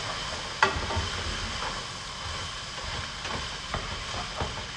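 Rice frying in oil and soy sauce in a stainless steel pot on medium-high heat, stirred with a utensil: a steady sizzling hiss with a few sharp clicks of the utensil against the pot, the loudest about half a second in.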